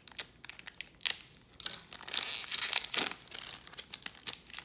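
Foil wrapper of a trading-card pack being torn open and crinkled: a run of sharp crackles, with a denser stretch of tearing about two seconds in.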